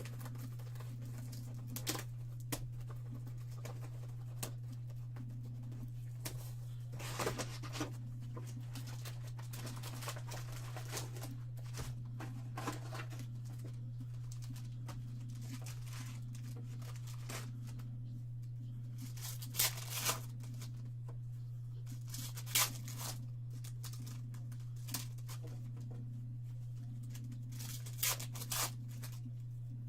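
Trading-card box and wax packs being torn open: scattered short, sharp rips and crinkles of wrapper, with the loudest few clustered near the two-thirds mark and near the end.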